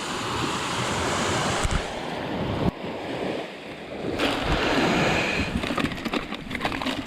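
Surf washing onto a beach, with wind noise on the microphone; the noise swells and eases and drops suddenly almost three seconds in.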